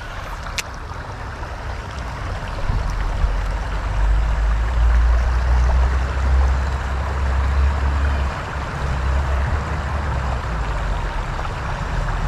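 A shallow river running over stones: a steady rush of water. From about four seconds in a low rumble under it grows louder, and there is a sharp click about half a second in.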